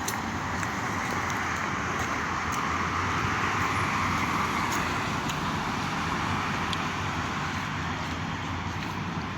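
Steady outdoor rushing noise like road traffic, swelling gently about halfway through as if a vehicle passes.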